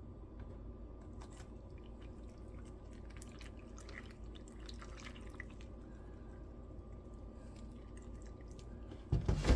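Milk poured from a jug onto crunchy cereal in a bowl: faint splashing and dripping with scattered light ticks, over a steady low hum. A louder bump just before the end.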